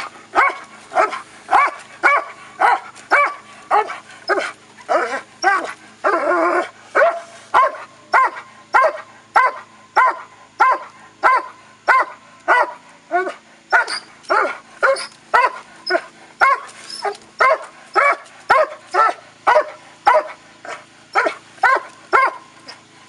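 A Dobermann barking hard and steadily, about two barks a second, at a helper during protection training, with one longer, wavering bark about six seconds in.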